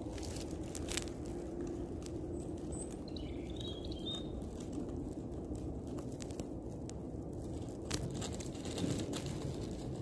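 Outdoor ambience: a steady low background rumble with a short bird chirp about three seconds in and a couple of sharp clicks.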